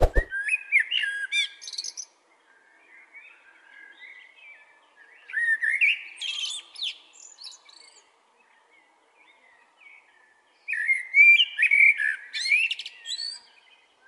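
Male common blackbird singing three phrases of low, fluty warbling, each ending in a high, thin twitter, with quieter song between them.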